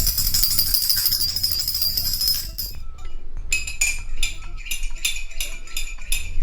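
Rhythmic metallic jingling like a tambourine: a continuous shimmering shake for about the first two and a half seconds, then sharp jingles about four times a second.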